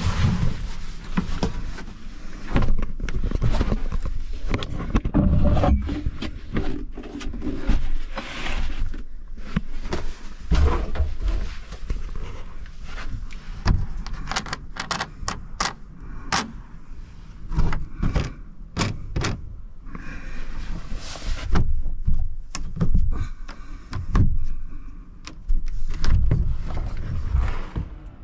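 Irregular knocks, thuds and clicks as someone moves about inside a 24 ft Haines Hunter 733 fibreglass cabin cruiser, with hatches or doors being handled.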